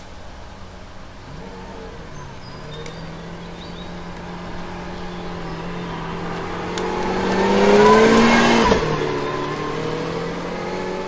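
Lamborghini Aventador S's naturally aspirated 6.5-litre V12 accelerating past. The engine note swells and rises in pitch to its loudest about eight seconds in, drops sharply just before nine seconds, then climbs again as the car keeps pulling.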